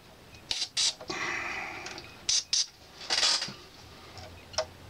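DeoxIT contact cleaner hissing from an aerosol can through its extension straw, sprayed into a turntable's switch in several short spritzes, the longest about a second in. The spray cleans dirty, sticky contacts.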